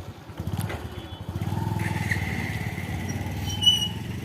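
A small engine running with a fast, even beat, getting louder about a second and a half in, with a brief high squeak near the end.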